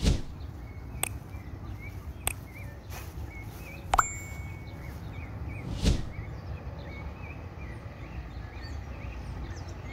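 Sound effects of a subscribe-button animation: clicks about one and two seconds in, a sharper click with a short bell-like ding about four seconds in, and a whoosh near six seconds. Faint bird chirping runs underneath.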